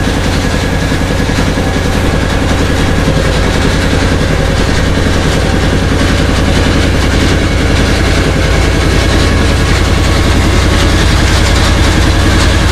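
Engine of a small wooden river boat running steadily under way, a constant low hum, with water rushing and splashing along the hull.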